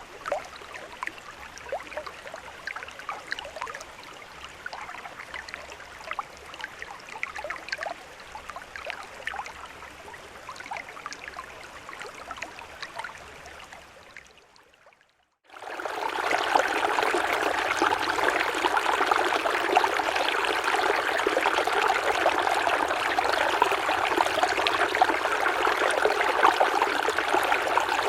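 Flowing water in two separate clips: first a quieter trickle full of small splashes and drips, fading out about halfway; then, after a second of silence, a louder, steady rush of stream water.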